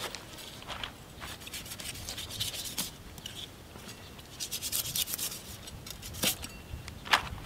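A knife scraping and sawing through a large shark's tough skin in short, repeated strokes, with two sharper clicks near the end.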